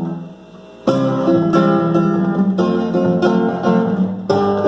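Instrumental introduction of a Brazilian festa junina marchinha: a held chord dies away, then about a second in a plucked-string band starts a lively rhythmic tune.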